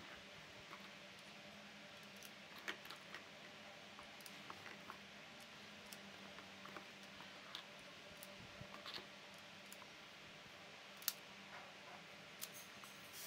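Faint scattered clicks and light metal taps of shells and a CO2 revolver's cylinder being handled and loaded, with a sharper click about eleven seconds in, over a low steady hum.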